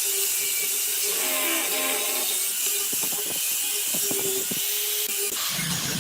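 Handheld electric power tool running on wood, a steady whine over hiss; its sound changes a little after five seconds in.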